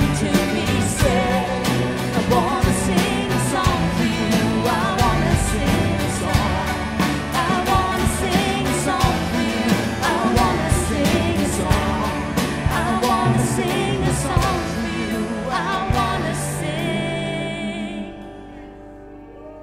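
Worship band music with singing over a steady drum beat, fading out near the end.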